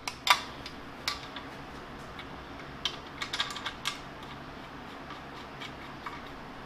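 Light, sharp metal clicks and clinks as a digital readout scale guard is handled against a milling machine table and its screws are fitted by hand. The sharpest click comes about a third of a second in, with a quick cluster of clicks around three to four seconds in.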